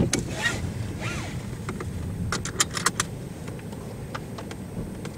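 Low steady rumble of a stopped vehicle with its cabin noise. A sharp knock comes at the start, and a quick run of five or six sharp clicks follows about two and a half seconds in.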